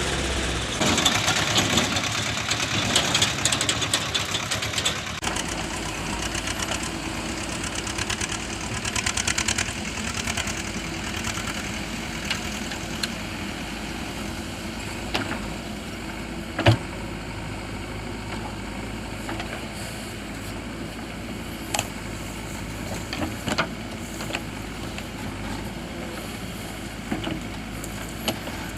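Diesel engine of earthmoving machinery running steadily, louder for the first five seconds or so and then settling lower. Several sharp knocks stand out over it, the loudest about two-thirds of the way through.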